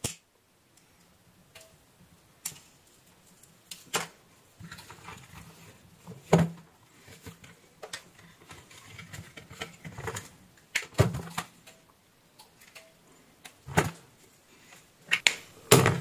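Irregular clicks and taps with soft rustling between them: wire leads being twisted together and hand tools such as wire cutters and a soldering iron handled and set down on a workbench. The clicks come thickest near the end.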